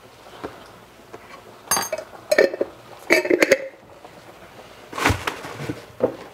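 Kitchenware clinking and clattering on a counter: a ringing clink a little under two seconds in, then clusters of knocks and clinks around two and a half, three and five seconds.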